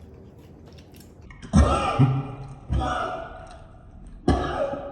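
A man coughing hard three times, choking on spicy seafood-boil seasoning.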